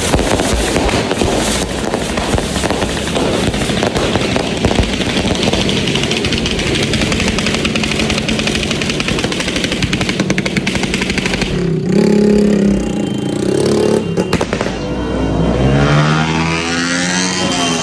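Engine revving, loud, over a dense noisy din; in the last few seconds its pitch rises and falls repeatedly.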